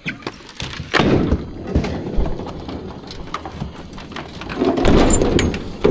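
Handling noise: scattered knocks, clatter and scraping as items, among them a glass-fronted picture frame, are picked up and carried. A louder stretch of rustling and scraping comes near the end.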